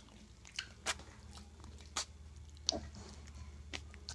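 Mini piglets slurping goat's milk from a dish: a few irregular, wet smacking clicks of their mouths. A steady low hum runs underneath.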